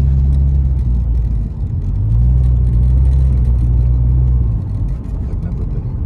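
Steady low drone of a car's engine and tyres heard from inside the cabin while driving. It eases briefly about a second and a half in and again near the end.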